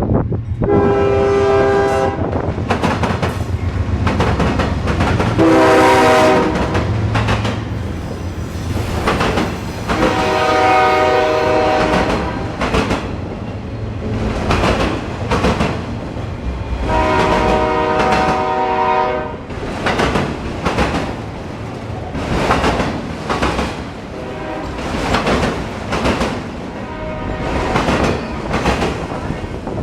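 A locomotive passes close by, sounding four blasts on its air horn over the rumble of its engine. The train's cars then roll past with a rhythmic clickety-clack of wheels over the rail joints.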